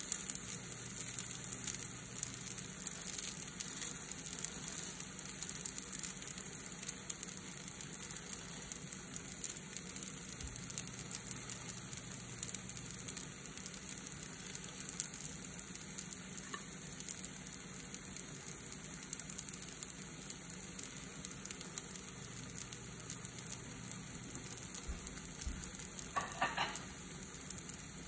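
Pancake batter frying in an oiled nonstick pan, a steady high sizzle.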